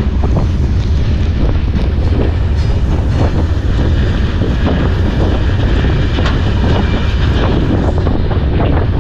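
Iron ore freight train running, its wagons rattling and clanking continuously, with heavy wind buffeting the microphone.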